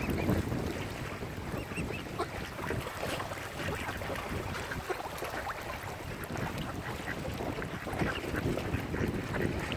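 Ducks and other waterbirds calling now and then, short calls scattered through, over a steady low rumble of wind on the microphone.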